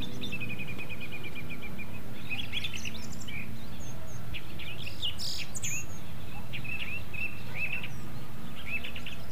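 Several small birds chirping and calling, with a rapid trill of short, evenly spaced notes in the first couple of seconds, over a steady low hum.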